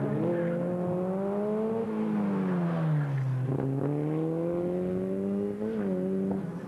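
Open-wheel formula racing car's engine accelerating through a slalom. Its note climbs, falls as the driver eases off about two seconds in, climbs again, then drops with a quick blip near the end.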